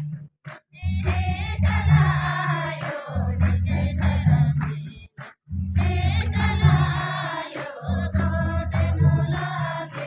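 Kurukh devotional song (bhajan): group singing over a steady low drum beat and regular high percussion ticks, with two brief breaks, about half a second in and about five seconds in.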